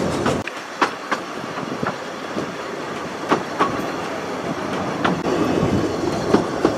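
Narrow-gauge railway carriage running along the line. Steady running noise with irregular sharp clicks of the wheels over rail joints, every second or so.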